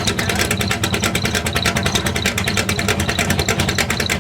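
A vehicle engine idling with a fast, even beat of exhaust pulses.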